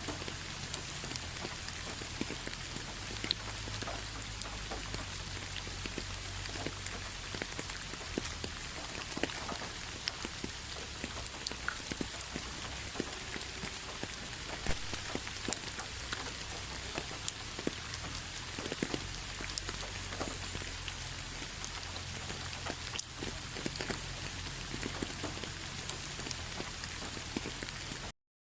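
Steady rain falling, an even hiss with scattered sharper drop ticks. It cuts out to silence for a moment just before the end.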